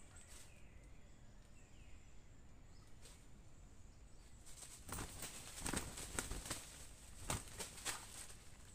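Red junglefowl moving on dry leaf litter: faint rustling at first, then from about five seconds in an irregular run of sharp rustles and wing flaps as the birds scuffle in the leaves.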